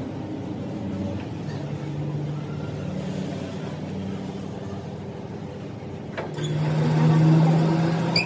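Machinery running with a steady hum. A click comes about six seconds in, and the hum then grows louder for a second or two.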